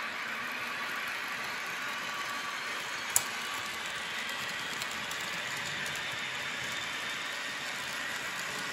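N-scale model train, an E103 electric locomotive model with coaches, running steadily along the layout's track: an even running noise from the small motor and wheels on the rails. One sharp click comes about three seconds in.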